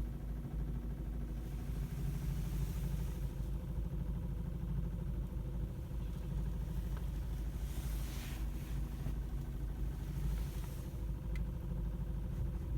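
VW Polo's 1.4 TSI (CZCA) engine idling steadily, with the knocking of its fuel lines that the owner is recording.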